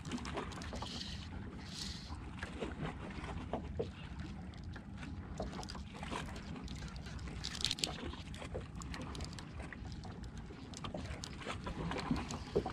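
Water lapping against the hull of a small fishing boat over a steady low rumble, with scattered light ticks and knocks.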